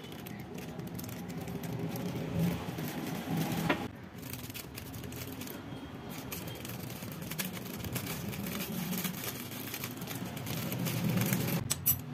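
Plastic Oreo biscuit wrapper crinkling as it is squeezed and handled, with a sharp click about four seconds in and another near the end, over a low steady background rumble.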